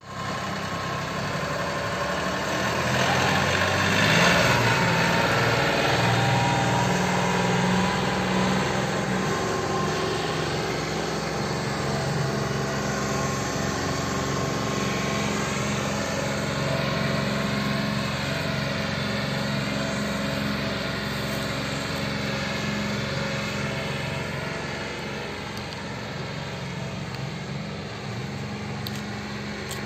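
Farm tractor's diesel engine running steadily as the tractor drives past close by, loudest a few seconds in, then slowly fading as it moves away.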